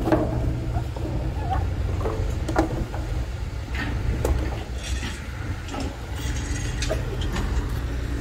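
A steady low engine drone, with scattered knocks and clatter over it.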